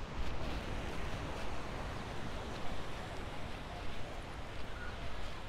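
Wind rumbling on the microphone over a steady wash of outdoor noise like surf, with no clear single event.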